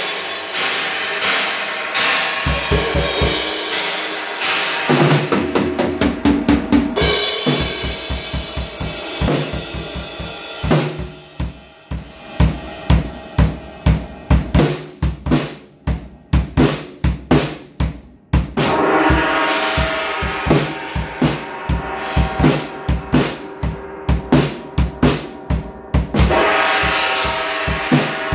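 Drum kit with Paiste cymbals being played, a busy beat of snare, bass drum and crashing cymbals. About eleven seconds in the cymbals drop out, leaving drier drum hits, and the cymbal wash comes back in later.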